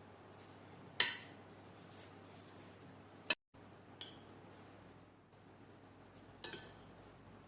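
Cutlery clinking against a plate, a few separate sharp clinks with a short ring, the loudest about a second in and a quick double clink near the end, over low room tone.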